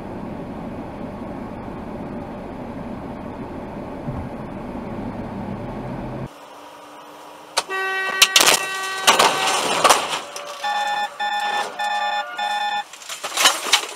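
Steady road and engine rumble heard inside a car, cut off suddenly about six seconds in. Then a long horn-like blast, followed by about four short, evenly spaced beeps, with loud knocks and clatter around them.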